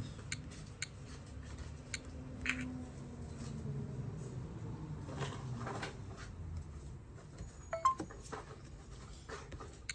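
Faint, scattered taps and clicks from a Graupner MZ-series RC transmitter being worked by hand, with a brief tone about eight seconds in.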